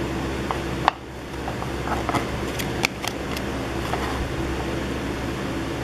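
Steady mechanical room hum, with a few light clicks and taps of cardboard trading cards being handled and flipped over. The sharpest click comes about a second in, and a small cluster follows around two to three seconds in.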